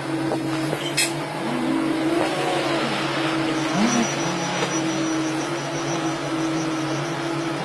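A motor vehicle's engine running steadily, with a few brief rises and falls in pitch and a sharp click about a second in.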